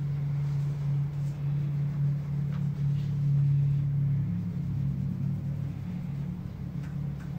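A steady low hum, with a few faint light ticks.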